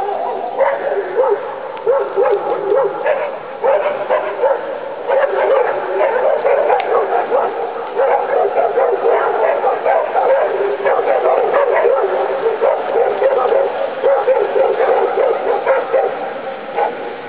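A dog yipping and whining in a long run of short, quick calls that rise and fall in pitch, fading near the end.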